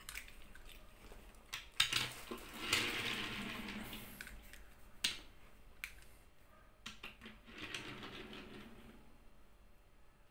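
Scattered sharp clicks and light scraping of small die-cast Hot Wheels toy trucks being handled and set down on a tabletop.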